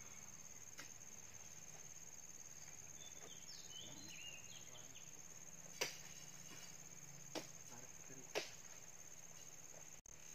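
Faint, steady high trill of insects, over which come a few sharp knocks, three of them in the second half: oil palm fruit bunches thrown up landing on a lorry's load.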